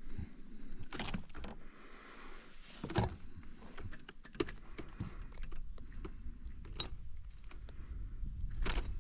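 Scattered clicks and knocks of hands handling a rubber-mesh landing net and unhooking a small bass, with a low rumble building near the end.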